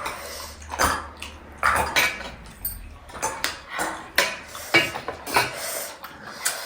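Spoons and forks knocking and clinking against bowls and plates while people eat, in irregular sharp taps about one or two a second.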